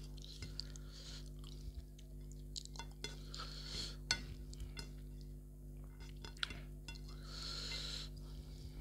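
Close-up eating sounds: chewing with sharp wet mouth clicks, and fingers squishing and mixing rice with curry on a plate, over a steady low hum.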